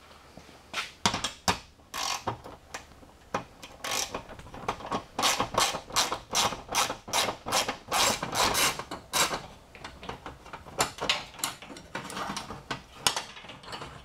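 Socket ratchet wrench clicking in quick back-and-forth strokes, loosening the bolts that hold a steel garage door hinge and roller bracket. The clicks come in runs of several a second, thickest in the middle.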